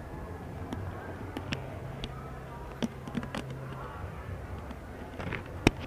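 Handling noise from a helmet-mounted camera: scattered clicks and knocks, with one sharp click near the end, over a steady low hum.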